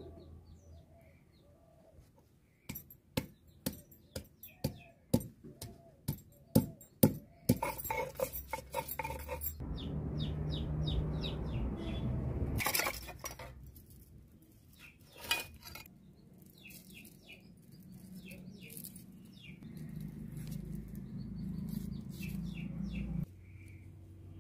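Handling sounds at a stone grinding slab (sil-pata) and a steel plate: a run of sharp taps about two a second, then a stretch of scraping and two louder knocks, then light clinks and knife taps. Small birds chirp faintly.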